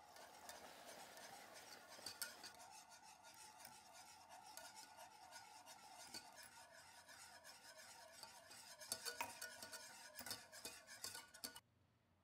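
Metal balloon whisk stirring caramel sauce in a saucepan as hot cream is whisked in. It makes a rhythmic swishing and scraping with sharp clicks of the wires against the pan. The clicks come thicker near the end, then the whisking stops abruptly.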